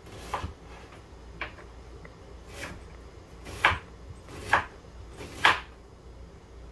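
Knife chopping half a white onion on a wooden cutting board: about six separate strokes roughly a second apart, the last three the loudest.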